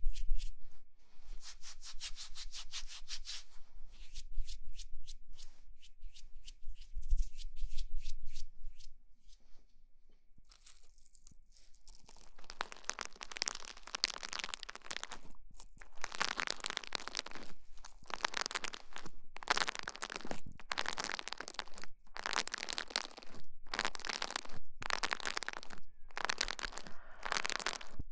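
Close-miked ASMR trigger sounds: a run of fine crackling clicks, a brief lull, then scratchy noise in short bursts about once a second.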